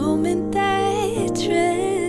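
Soft, slow music: sustained instrumental chords over a steady bass, with a wavering sung melody line.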